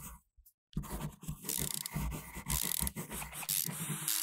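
Quick, scratchy scribbling sound effects, like a pencil drawing on paper, for an animated title, with a steady low hum coming in near the end.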